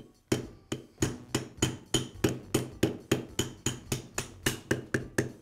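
Mallet tapping a socket down onto a Makita grinder's armature shaft, driving the ball bearing onto the spindle: an even run of light taps, about three a second, each with a short metallic ring.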